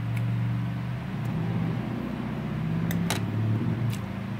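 A motor vehicle running outside, heard through an open window: its low engine note swells and shifts in pitch as it passes, then fades near the end. A couple of light clicks about three seconds in.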